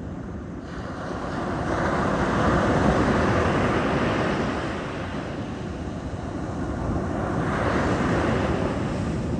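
Sea waves breaking and washing up the shore: surf noise that swells to a peak about three seconds in, ebbs, then swells again near the end.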